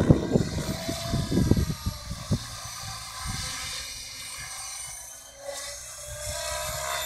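Mikado Logo 600SX electric radio-controlled helicopter flying low, its motor and main rotor giving a steady whine. Low rumbling on the microphone dies down about two seconds in.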